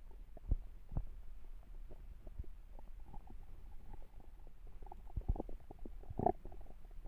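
Hungry human stomach growling: irregular short gurgles and pops, with a longer drawn-out gurgle about three seconds in and louder gurgles towards the end.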